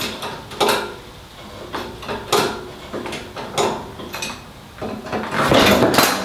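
Hydraulic bottle jack being pumped by its steel handle, about one metallic clink a second, as it presses down on a tyre to break the bead off the rim. Near the end there is a louder, denser scraping rush.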